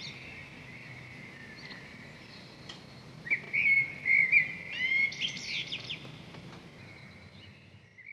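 Birds chirping in short repeated calls over a faint steady hiss, with a busy flurry of chirps in the middle, fading toward the end.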